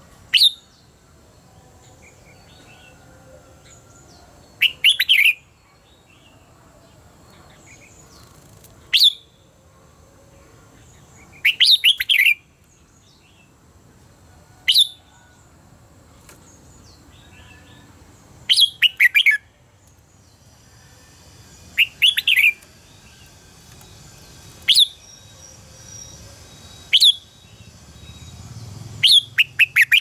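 Red-whiskered bulbul singing: about ten short, loud phrases a few seconds apart, each a quick run of notes sweeping down in pitch.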